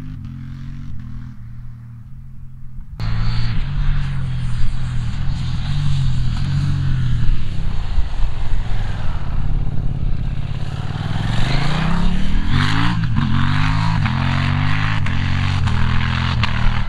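KTM 890 Duke R parallel-twin engine accelerating and shifting through the gears, the pitch stepping up and dropping back with each shift. For the first three seconds it runs through an Austin Racing V3 Mini slip-on exhaust, then it cuts abruptly to the bike on its stock OEM exhaust, much louder.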